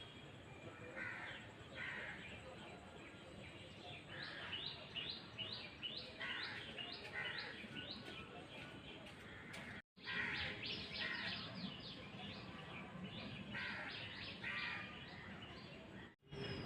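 Birds calling: a rapid series of short, repeated chirps with caw-like calls among them. The sound cuts out abruptly twice.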